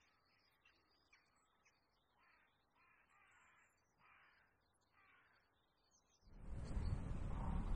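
A crow cawing faintly several times. About six seconds in, a much louder rushing noise with a deep rumble takes over.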